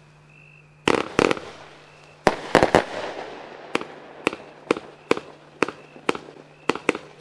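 A 144-shot, 20 mm compound fireworks cake (Lesli Ivy) firing: sharp bangs begin about a second in, a quick cluster comes near the middle, and then single shots follow at about two a second.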